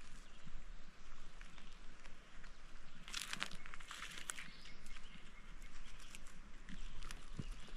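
Creek water running over a shallow riffle as an even rushing hiss, with a couple of louder splashing, scuffling bursts about three and four seconds in.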